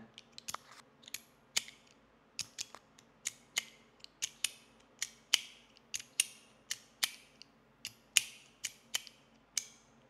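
Nayici Musketeer metal slider fidget toy being slid back and forth, its slide snapping with a sharp metallic click about two or three times a second, each click ringing briefly.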